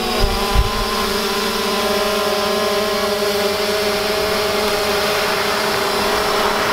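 Quadcopter drone hovering, its propellers giving a steady, even buzz.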